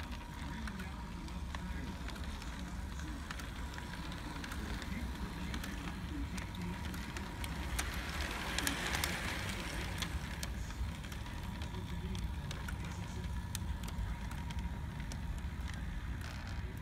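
Lionel Polar Express O-gauge model steam locomotive running on its track: a steady low motor rumble with frequent clicks of the wheels over the rails, and a brief hiss about nine seconds in.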